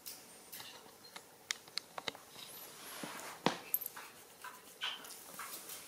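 Soft irregular clicks and slurps of small animals drinking milk: a kitten lapping from a plate and a baby macaque sucking on a feeding bottle, with one louder click about halfway through.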